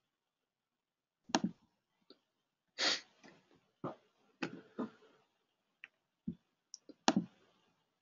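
Irregular soft clicks and taps at a computer, about ten over several seconds with uneven gaps, as a mouse and keyboard are worked.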